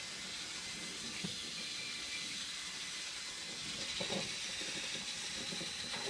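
Steady hissing whir of a drill-driven dryer-vent cleaning brush turning inside a rigid galvanized metal vent pipe, with a couple of faint knocks.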